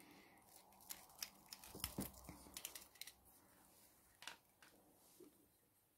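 Faint clicks and light scrapes of a USB cable being handled at the rear port of a metal-bodied USB condenser microphone. A cluster of small clicks comes about one to three seconds in, and a single click follows a little after four seconds.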